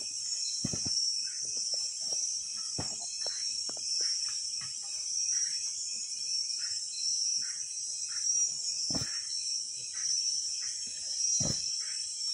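Steady high-pitched chorus of insects, crickets or similar, with a few low thumps and knocks, about four, scattered through it.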